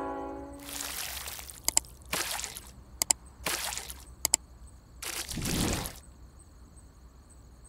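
A locomotive horn's last note fades out in the first half second. Then a subscribe-button sound effect plays: a string of whooshes broken by three quick double mouse-clicks, ending with a deeper whoosh around five to six seconds in.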